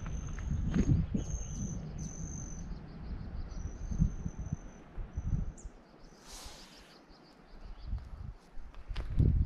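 A high, thin animal trill in several long notes at one pitch, broken by short gaps, over a low rumble. The trill stops about halfway through, and a loud thump comes near the end.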